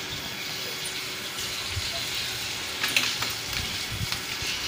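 Water spraying from a garden hose onto a concrete floor, a steady hiss of spray and splashing as the floor is washed of cement and sand.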